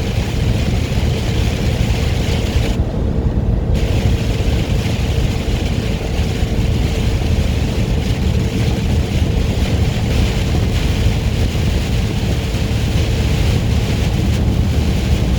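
Inside a semi truck's cab at highway speed in heavy rain: steady diesel engine drone with rain and road hiss and a faint steady whine. The hiss briefly drops out for under a second about three seconds in.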